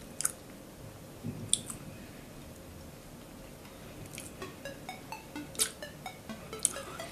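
A person chewing a mouthful of Nutella-filled donut close to the microphone. Now and then there is a sharp mouth click, and from about four seconds in the small clicks come faster.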